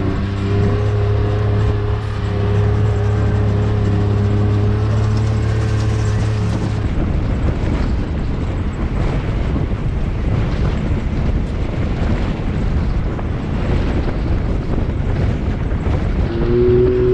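Background music for the first several seconds, then the engine of a Can-Am Maverick X3 Max side-by-side running on the move, mixed with loud rough tyre and gravel noise from driving along a dirt track.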